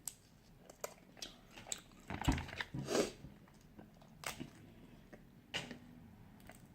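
A person eating boiled crawfish: shells cracking, chewing and wet smacking in short, scattered bursts, busiest about two to three seconds in.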